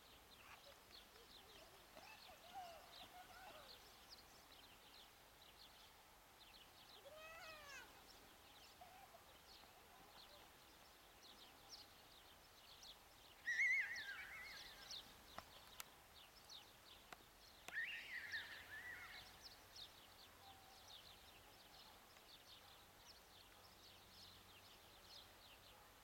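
Faint outdoor ambience with short high chirps scattered throughout and a few louder animal calls, the loudest about 13 and 18 seconds in.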